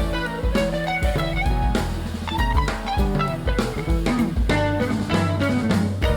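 Background music: a guitar-led, jazzy instrumental with bass and a drum kit keeping a steady beat.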